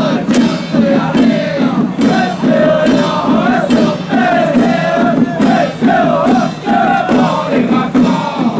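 Loud procession band music: a wavering, pitched melody over a steady beat of drum and cymbal strikes, with crowd noise mixed in.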